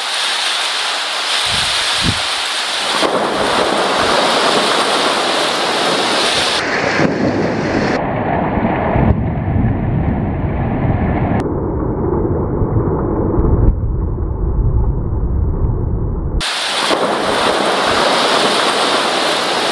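Heavy downpour of rain during a thunderstorm, with thunder rumbling long and low through the middle, loudest a little past halfway.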